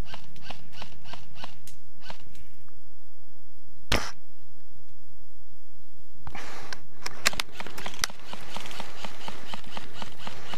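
A single sharp shot about four seconds in from a Silverback SRS bolt-action airsoft sniper rifle. Before it there is a run of quick clicks and rustling, and from about six seconds on there are more rustling and several sharp clicks.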